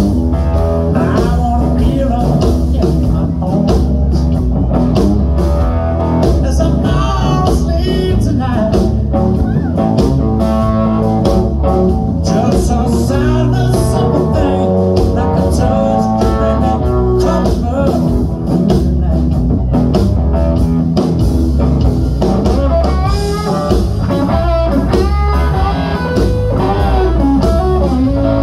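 Live blues band: a thinline Telecaster-style electric guitar, played clean straight into the amp with no pedals, plays bending lead lines over bass and drums.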